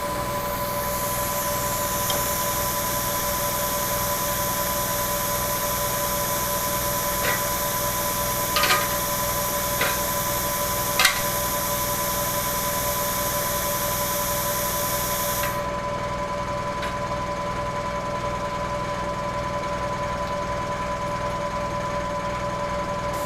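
Plasma cutter running with a steady hum and high hiss, with a few sharp clicks, and the hiss cuts off suddenly about fifteen seconds in.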